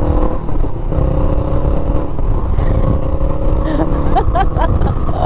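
Honda Rebel S motorcycle with an aftermarket exhaust accelerating along the road. The engine note rises, drops at an upshift about half a second in and again about two seconds in, then climbs again. Wind rumbles across the uncovered helmet microphone.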